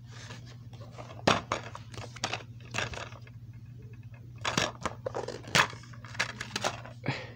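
Plastic DVD case being handled and opened: scattered clicks and rattles of the plastic, with a sharper snap about a second in and a burst of clicking later on, over a steady low hum.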